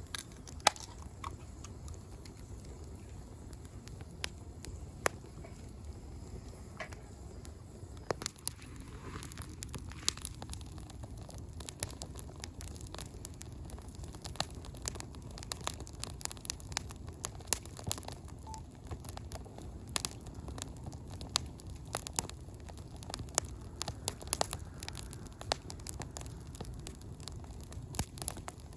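Wood campfire crackling, with sharp irregular pops from the burning logs that come more often after about eight seconds.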